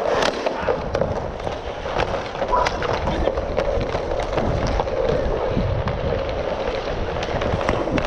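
Inline skate wheels rolling steadily over plastic sport-court tiles, with frequent sharp clicks of a hockey stick handling the puck.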